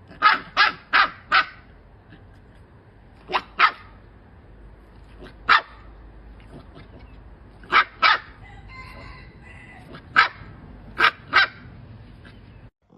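A dog barking in short bursts: four quick barks at the start, then pairs and single barks with pauses of a second or two between them.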